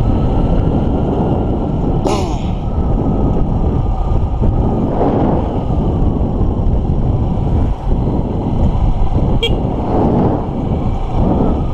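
Honda XR150L's single-cylinder four-stroke engine running steadily while riding, mixed with wind and road noise on a helmet-mounted microphone.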